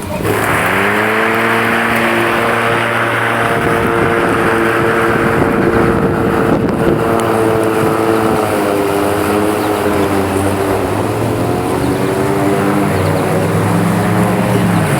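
Black and Decker electric lawn mower's motor and blade spinning up within about a second, then running steadily with a hum and a whir. Its pitch sags briefly twice in the second half.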